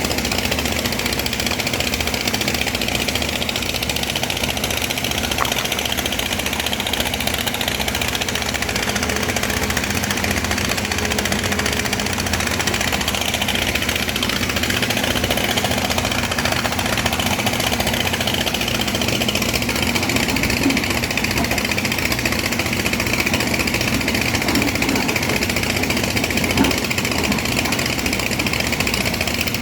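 Excavator's diesel engine running steadily, with an even, knocking clatter.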